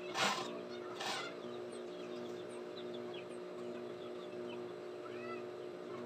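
Juki industrial sewing machine's motor humming steadily, with two brief louder bursts about a second apart near the start. Hens cluck faintly in the background.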